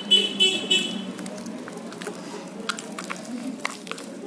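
Fluffy slime being stirred and squeezed with a wooden stick and fingers in a plastic cup: soft, wet squishing with small sticky clicks. A few short, high-pitched pulsing tones sound in the first second.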